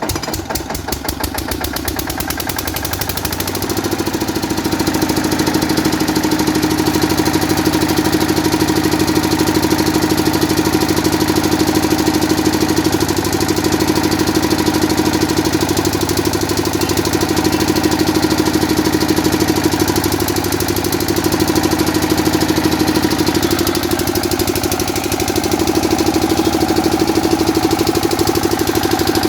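12 HP engine of a 7.5 kVA portable generator speeding up over the first few seconds after starting, then running steadily at governed speed.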